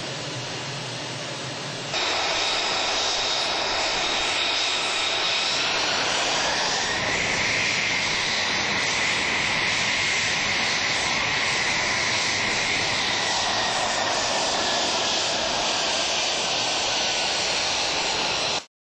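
F-35 Lightning II's F135 turbofan jet engine running at low power on the ground: a steady rushing noise with a high whine that rises a little in pitch. It gets suddenly louder about two seconds in and cuts off abruptly near the end.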